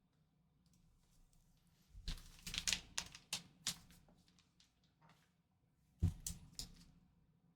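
Plastic trading-card packaging being handled, making sharp clicks and crinkles. There is a dense cluster about two seconds in that lasts about two seconds, then a shorter cluster about six seconds in.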